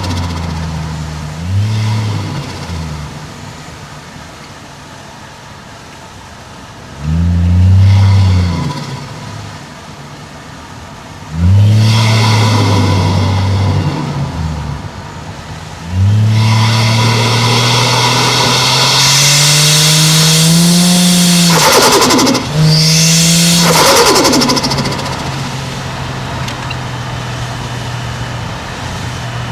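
Toyota 1JZ-GTE turbocharged straight-six revving in a few short bursts, then pulling through a longer rise in revs. There are two sharp hissing bursts when the throttle is lifted, turbo flutter, before it settles into steady cruising.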